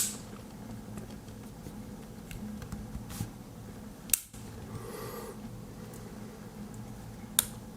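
A few sharp, isolated clicks from handling a small all-metal Swiss Army knife, over a faint steady room hum.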